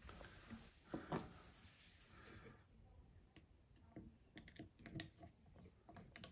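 Faint clicking and light knocking of a push-button basin waste's fittings being handled while its screw is worked into the thread. Two louder knocks come about a second in, and a run of small clicks follows later.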